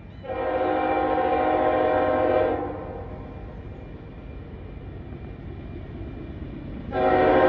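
Diesel freight locomotive's Nathan K5HL five-chime air horn sounding a long blast of about two seconds, then a second long blast starting near the end, with the approaching train's low rumble between the blasts.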